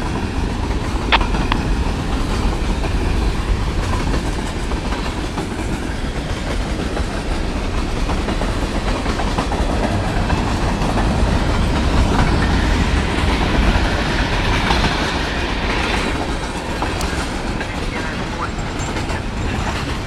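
A freight train's cars rolling past: the steady rumble of steel wheels on rail, with a sharp click about a second in.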